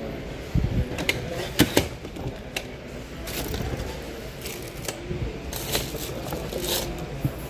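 Clicks, knocks and rattles of suitcases being handled, including a telescopic trolley handle being gripped and moved, over the steady hum of a shop.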